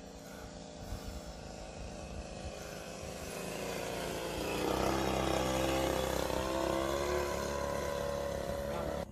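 Engine and propeller of an RC model Piper Cub in flight, a steady pitched drone that grows louder from about three seconds in as the plane passes close, then cuts off suddenly at the end.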